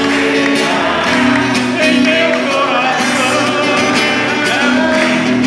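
Church congregation singing a hymn over amplified music, with many hands clapping along.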